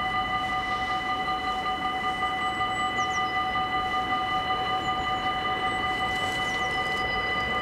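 Dutch level-crossing warning bells ringing without a break, a steady bright ring on several fixed pitches, signalling that a train is approaching and the barriers are down.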